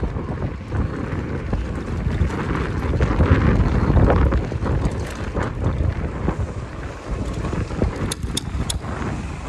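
Wind buffeting the microphone of a chest-mounted camera on a bicycle ride, a dense low rumble that swells about three to four seconds in, with a few light clicks near the end.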